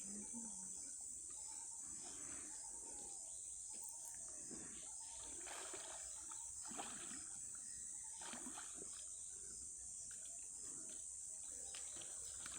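Faint, steady high-pitched chorus of insects, with scattered soft rustles and calls underneath.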